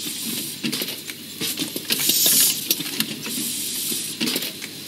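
Automated watch-assembly machine running: quick irregular clicks and the clatter of small metal parts, with recurring bursts of hiss.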